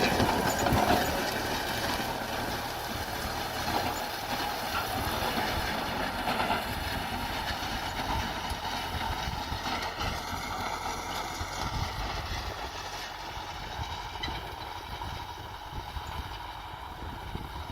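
Kubota M6040 tractor's diesel engine running under load while ploughing, a steady rumbling drone that slowly grows quieter over the stretch.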